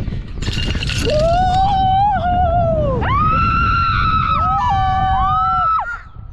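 Two people screaming on a giant swing as it drops and swings out, in long drawn-out screams that rise and fall, over a steady low rushing noise. The screams break off a little before the end.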